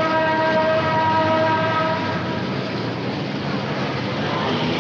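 A horn sounds one long steady blast of about two and a half seconds, then fades, over continuous street-traffic rumble.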